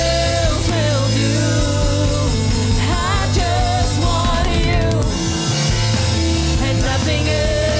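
Live worship song: a woman sings the lead into a microphone, holding notes with a slight waver, over electric keyboard and band accompaniment.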